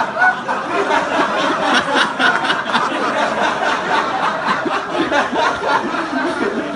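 Many people laughing together at once, a deliberate group laugh on cue, with many voices overlapping.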